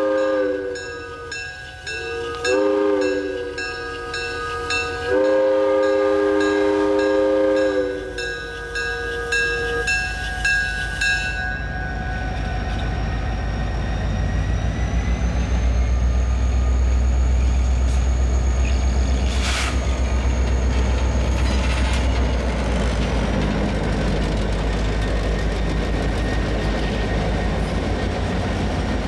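Hancock air whistle on an EMD GP30 diesel locomotive blowing a short blast and then a long blast, the close of a grade-crossing signal. The locomotive's turbocharged diesel engine then passes close by, a deep rumble that swells and eases off, with a thin high whine over it and one sharp clank in the middle.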